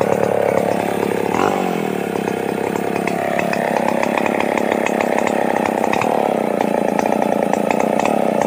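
Petrol chainsaw running at high revs and cutting into the trunk of a felled tree at the stump. The engine pitch sags briefly as the chain bites about a second and a half in, then holds steady under load.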